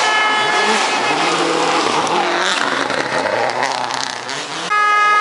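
Rally cars driven hard past on a gravel stage, engines revving up and down over the hiss of tyres and thrown gravel. Near the end the sound switches abruptly to a steadier, higher engine note.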